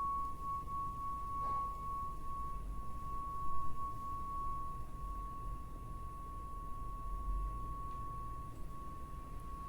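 1111 Hz tuning forks ringing: one steady, pure high tone held throughout.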